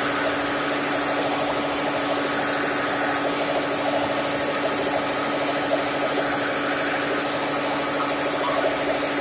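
Pulverizer-type flour mill running steadily while grinding grain into flour: a constant hum under a dense, even rattle.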